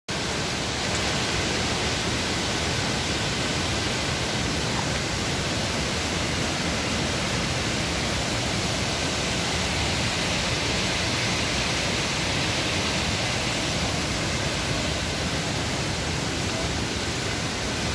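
River water rushing, heard as a steady, even rush with no breaks.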